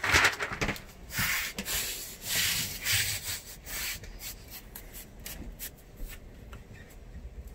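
Hands sweeping and pressing over a sheet of teak-look flooring to stick it down onto contact cement, in several rubbing strokes. The rubbing is strongest in the first few seconds, then turns softer, with small ticks.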